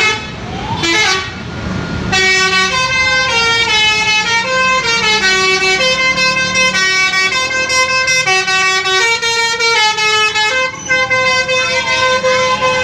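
Indonesian 'telolet' multi-tone musical bus horn playing a melody, its notes stepping up and down a few times a second. A short siren-like rising glide comes near the start and a long falling glide near the end.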